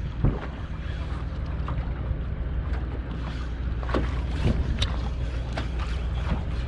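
Wind on the microphone and choppy water against a small boat, over a steady low hum, with a few sharp ticks and knocks.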